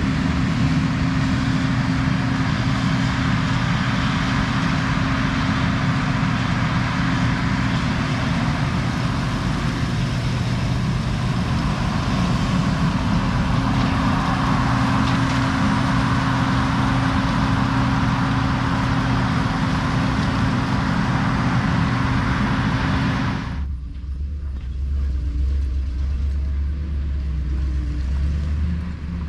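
Heavy farm vehicle engine running steadily under a broad hiss. About 23 seconds in, the sound changes abruptly to a deeper, steady low drone with far less hiss.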